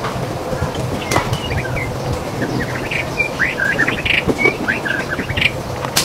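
White-rumped shama (murai batu) singing a quick run of varied short whistled notes, busiest in the second half, over a steady background hiss and low hum.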